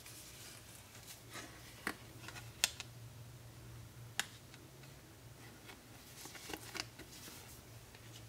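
Hands handling a smartphone and its packaging: soft rustles and a few sharp clicks and taps, the loudest about two and a half seconds in, over a steady low hum.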